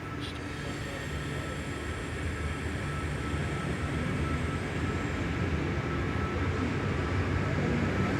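Double-deck electric intercity train rolling very slowly into the station: a low rumble that grows steadily louder as it approaches, with a thin steady whine above it.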